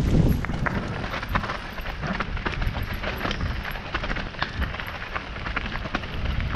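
Mountain bike rolling over a rocky trail, with the tyres and frame rattling over stones in many quick clicks and knocks. A steady low rumble of wind buffets the camera microphone the whole time.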